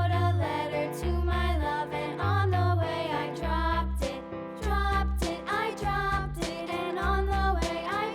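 Upbeat children's music with a steady bass beat, about one bass note a second, and a bright melody line that may be sung.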